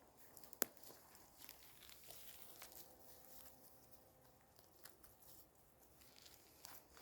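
Near silence with faint rustling and crackling, as of leaves and twigs on the forest floor, and one sharp click about half a second in.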